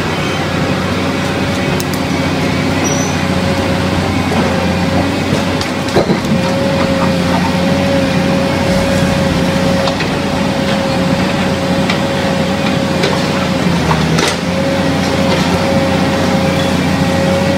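Forestry forwarder's diesel engine running steadily under load, with a steady high whine over it. A couple of sharp knocks come through, one about six seconds in and one near fourteen seconds.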